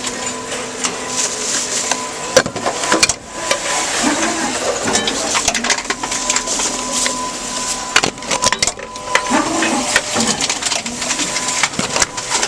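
Tomra T-X2 reverse vending machine running with a steady motor hum, while containers clatter and are crushed inside it in a string of irregular knocks and clicks.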